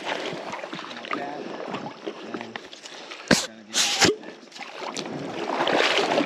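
Close-up water sloshing and handling noise as a wader moves in a shallow creek and handles a plastic water bottle, with two loud bursts of handling noise about three and four seconds in.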